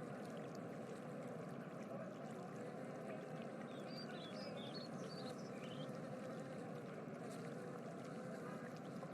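Steady rushing background ambience with a faint hum, and a few quick high chirps like birdsong in the middle.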